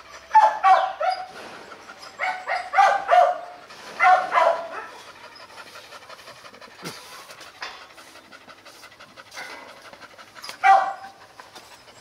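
Brindle Hmong bobtail dog panting hard with its mouth open, in four short runs of quick breaths with quieter pauses between.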